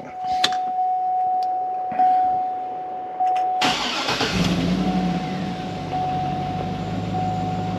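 A GMC Yukon Denali's 6.2-litre LS V8 is cranked and fires about three and a half seconds in, catching at once and running at a raised idle that steps down after about a second. The engine has just been reassembled with new head gaskets and plain lifters in place of the cylinder-deactivation lifters. A steady high electronic tone from the cabin sounds before the start and continues under the idle.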